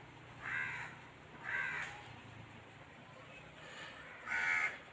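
A crow cawing three times, the first two about a second apart and the third after a longer pause.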